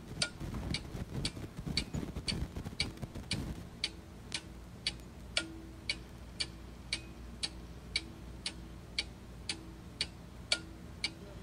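Clock ticking steadily, about two ticks a second, with a faint low tone between ticks. Low rustling and knocking can be heard under it in the first few seconds.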